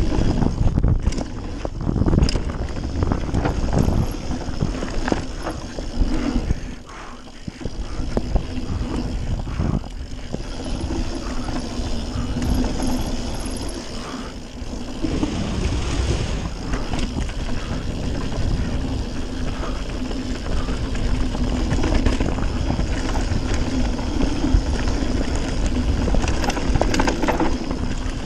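Radon Swoop 170 full-suspension enduro mountain bike riding fast down a dirt flow trail: a steady rush of wind on the microphone and tyres rolling over the dirt, with knocks and rattles as the bike hits bumps.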